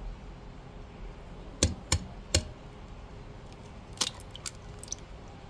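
An egg tapped three times in quick succession against the edge of a pan to crack it. A few seconds later come smaller cracking snaps as the shell is pulled open.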